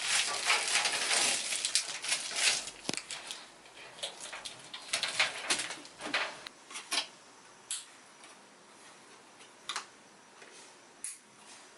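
Handling noise as PC cables and parts are pulled out and fitted: a few seconds of rustling, then scattered light clicks and taps that grow sparser.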